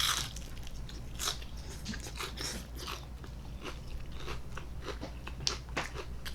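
Close-up chewing and biting of food, irregular soft crunches and mouth clicks, with a sharper bite right at the start.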